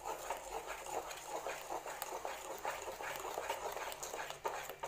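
Wooden spatula stirring thick amla paste into jaggery syrup in a pan: wet squelching and scraping strokes, several a second, irregular.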